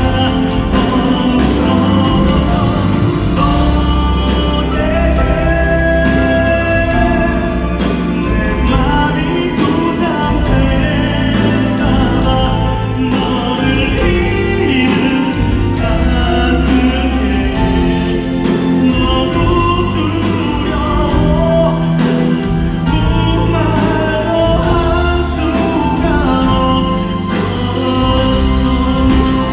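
Live concert music played loud and continuously by a band, with singing voices over it.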